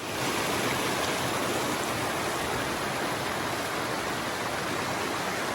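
Steady rushing of a fast-flowing mountain creek, an even wash of water noise with no pauses.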